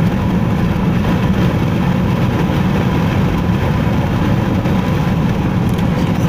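Steady road noise inside a car cruising at highway speed: tyre and engine drone heard through the cabin, with a faint steady whine above it.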